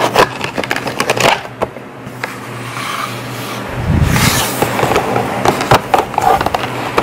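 Makeup packaging in a cardboard box being handled: plastic tubes and compacts clicking, tapping and scraping as they are moved. About four seconds in there is a brief muffled rubbing with a low rumble.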